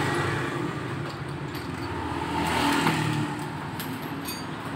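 A motor vehicle engine running steadily in the background, with a few light clicks.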